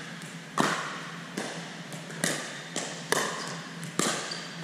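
Pickleball paddles hitting a hard plastic ball and the ball bouncing on a gym floor: a run of sharp pops every half second to second, each with a short echo from the hall.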